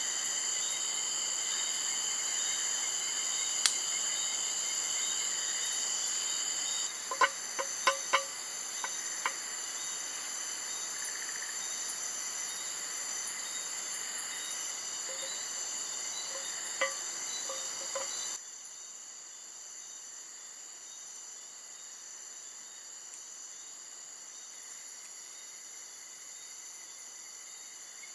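Chorus of crickets and other insects, a steady layered high-pitched trilling. A cluster of short sharp clicks comes about a quarter of the way in and one more past the middle, and the chorus turns quieter about two-thirds through.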